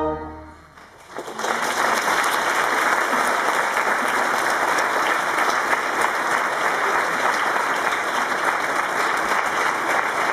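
The choir's final held chord dies away, and about a second later the audience breaks into applause that carries on steadily.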